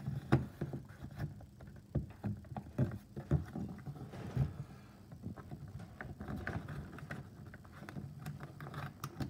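Hands pressing a trim panel into a ute's door frame: irregular knocks, taps and rubbing of trim against the door, with sharper clicks in the first few seconds as it is seated.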